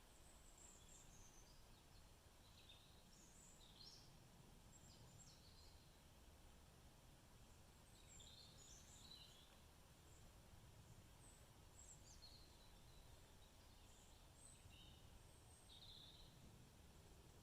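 Faint birdsong in woodland: scattered short chirps and brief high calls from several small birds, over a low steady background rumble.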